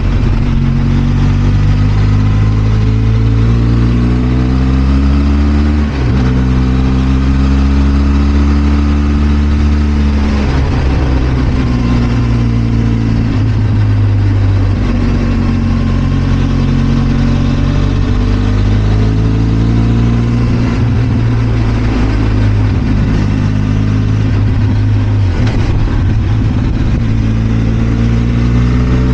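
Benelli TRK 502 X's parallel-twin engine under way, its pitch climbing as the bike accelerates. It drops sharply at a gear change about six seconds in, then rises and falls with the throttle through the rest.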